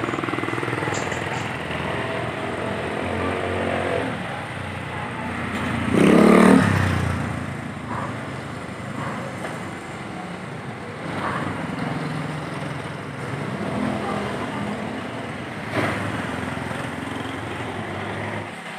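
Street traffic: motor vehicle and motorcycle engines running and vehicles passing on a wet road, with a louder vehicle sound about six seconds in.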